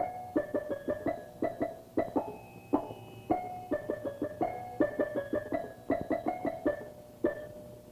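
Cartoon background music: quick runs of short, bright, struck notes in repeated phrases, with a few held notes between them.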